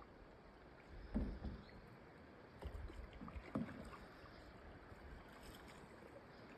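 Canoe paddle strokes in the water: a few soft splashes and knocks in the first four seconds or so, over a faint steady background.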